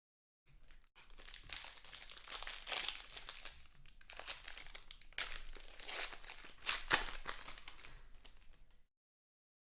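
Crinkling and tearing of a trading card pack's foil wrapper as it is handled and ripped open, in irregular crackles with a couple of louder rips a few seconds in.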